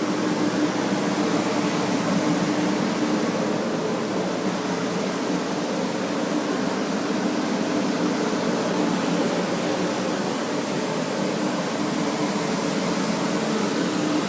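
Electric fans running steadily: a constant rush of air with a low hum held on a few steady tones.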